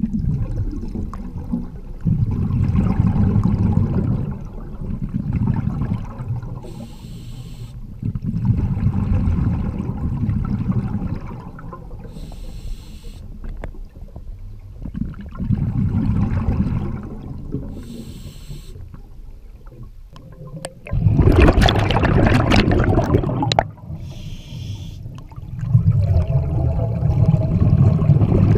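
Scuba diver breathing through a regulator underwater: a short hiss on each inhale and a long rumble of exhaust bubbles on each exhale, repeating about every six seconds. The loudest exhale comes about two-thirds of the way in.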